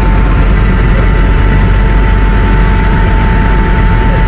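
Helicopter engine and rotor noise from inside the cabin: a steady heavy rumble with a constant high whine over it.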